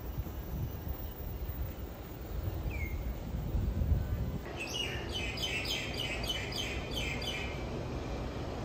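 A bird calling a quick run of about nine high chirps, roughly three a second, starting about halfway through, over a steady low rumble of background noise; one lone chirp comes a little earlier.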